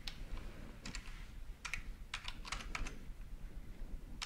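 Faint typing on a computer keyboard: a run of irregular keystrokes as an email address is typed.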